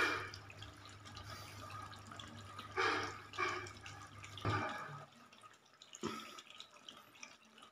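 Liquid cream squeezed from a Tetra Pak carton onto beef karahi in a wok: soft wet squirting and dripping in a few short bursts, over a low steady hum that stops about halfway through.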